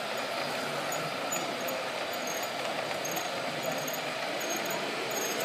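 Steady whirring of radio-controlled model trucks' electric drive motors and gearing as they climb a ramp.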